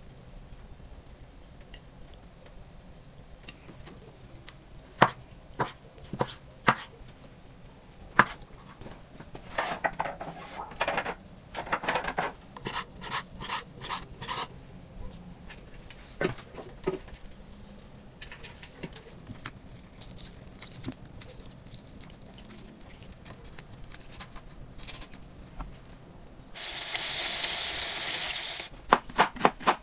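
Kitchen work sounds: scattered sharp knocks and clicks, then a run of quick taps, about four a second, on a wooden cutting board. Near the end comes a steady hiss of sizzling lasting about two and a half seconds.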